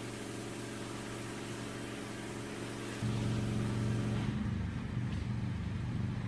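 A steady low mechanical hum made of several even, unchanging tones, stepping louder about three seconds in.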